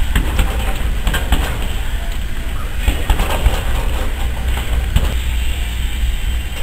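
Gloved punches landing on a heavy punching bag: a few irregular sharp thuds over a steady low hum.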